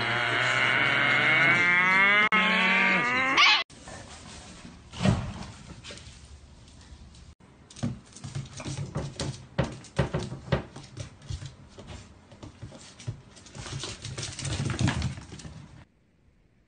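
An animal's long, loud call with a wavering pitch, cut off suddenly about four seconds in, then scattered knocks and short low animal sounds.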